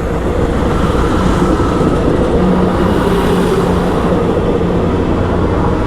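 Train passing close by on the PNR line, a loud, steady running noise of the train and its wheels on the track.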